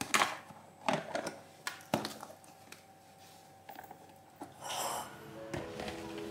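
Light knocks and clicks of kitchen utensils and containers being handled, with a soft rustle about five seconds in. Quiet background music comes in near the end.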